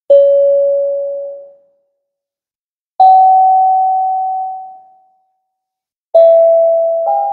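Single notes struck one at a time on a tuned, bell-like percussion instrument, each ringing out and fading over a second or two. Three notes of slightly different pitch about three seconds apart, with a higher note joining the last one just before the end.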